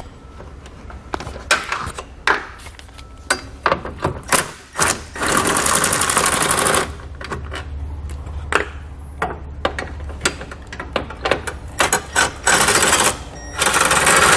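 Cordless drill with a socket attachment spinning out bolts: one run of about a second and a half about five seconds in, then two shorter runs near the end. Scattered clicks and clinks of the socket and bolts fall between the runs.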